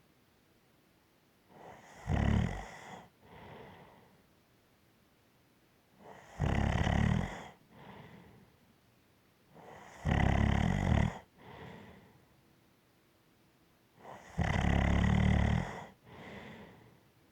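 Rhythmic snoring: four loud snores about four seconds apart, each followed about a second later by a softer breath.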